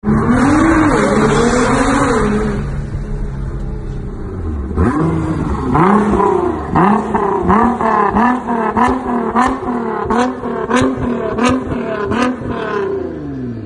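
2017 Nissan GT-R R35's twin-turbo 3.8-litre V6 revving through an Armytrix valved exhaust. First a held rev with a wavering pitch, then, after a lull, a rapid series of short throttle blips, about two a second, each rising and falling with sharp crackles at the peaks. Near the end the revs slide back down.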